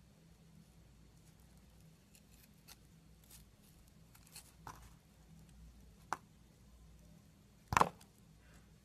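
Craft knife carving a bar of glitter-coated soap: faint scraping cuts with a few sharp crunches, one about six seconds in and the loudest, a crisp crack, near the end.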